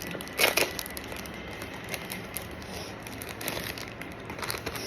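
Packaging crinkling and rustling by hand as a packet is opened. There is a louder crinkle about half a second in, then lighter handling noises.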